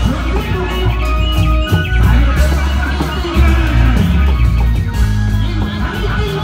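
Loud music with a heavy bass, a drum beat and held keyboard-like notes, played as accompaniment to a Reog Indramayu street performance.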